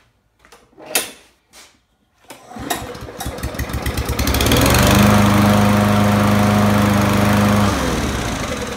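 A Craftsman push mower's Kohler 7.25 hp overhead-valve single-cylinder engine is pull-started after a few sharp knocks and catches on the first pull, just after its carburetor was cleaned. It picks up speed and runs steadily for a few seconds, then slows near the end.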